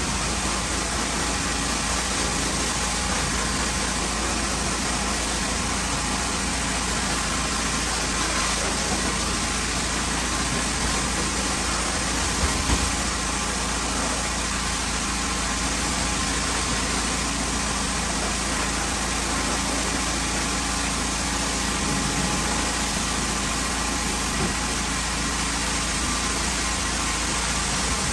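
Pressure washer running steadily: its engine drone under the constant hiss of the high-pressure water spray blasting grime off a porch ceiling.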